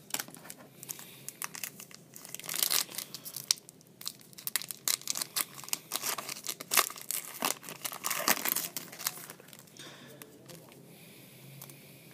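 Foil wrapper of a Topps Chrome card pack crinkling and tearing as it is opened by hand, in many sharp irregular crackles that die down after about ten seconds.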